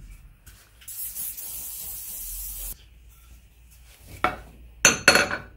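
Aerosol can of Ballistol oil sprayed in one steady hiss of nearly two seconds that stops abruptly. A few seconds later comes vigorous wiping of the oiled hammer head and handle with a leather cloth, a few loud rubbing strokes near the end.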